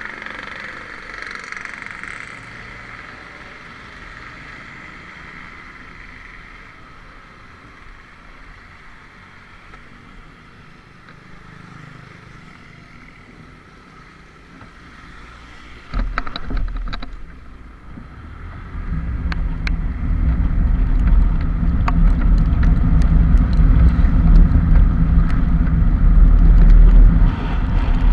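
Travelling in rain: a steady hiss and hum at first, then a few sharp knocks about two-thirds of the way through. After that comes a loud, rising low rumble of wind on the microphone as speed builds, with small clicks of raindrops through it.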